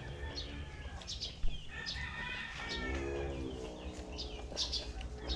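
Small birds chirping again and again, with a rooster crowing in the background about halfway through. A single sharp click about one and a half seconds in.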